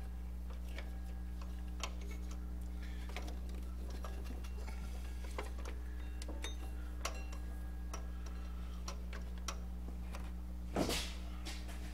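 Scattered light clicks and taps of a serpentine belt being worked by hand onto an LS engine's alternator pulley, with one louder knock near the end, over a steady low hum.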